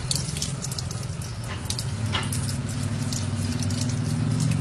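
Water from a garden hose spraying and pattering onto a wet rat and a wooden stool, in quick irregular spatters, over a steady low hum.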